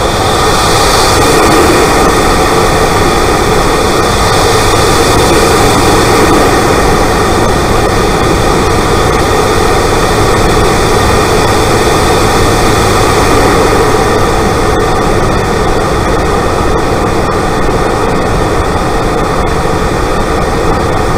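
Turbocharged Mk1 Mazda MX-5's four-cylinder engine, fitted with a TD04 turbo, running, heard from inside the engine bay as a loud, steady rushing noise over a low engine hum.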